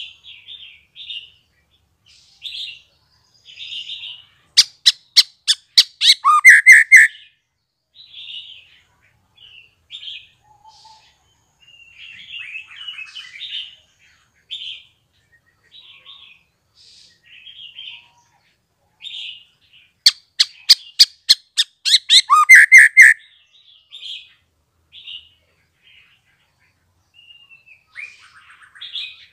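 Young male white-rumped shama, just out of its speckled juvenile plumage, singing in short, varied chirps and whistles. Twice, about four seconds in and again about twenty seconds in, it gives a quick run of sharp, loud clicks followed by loud whistled notes.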